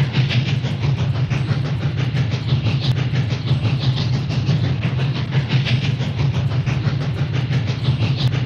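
Train sound effect: a running train with a fast, even clatter of wheels over a steady low rumble, and hissy swells every second or two.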